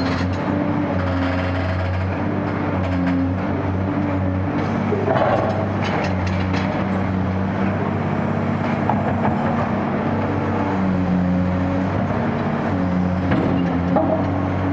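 Caterpillar 385C UHD demolition excavator's diesel engine running steadily under load, its tone stepping up and down as the hydraulics work. Scattered knocks and crunches of concrete, most about five to seven seconds in.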